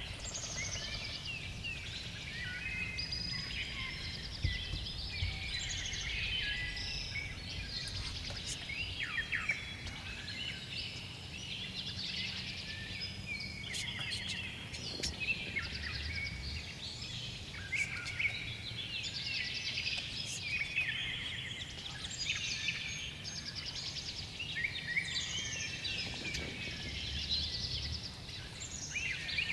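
Spring chorus of many songbirds chirping and trilling at once, over a low steady rumble.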